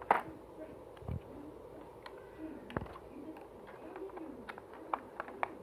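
Sharp plastic clicks from handling a rechargeable hair clipper's battery compartment and its AA cell. The loudest comes just at the start, with a few lighter clicks later. A bird coos softly and repeatedly in the background.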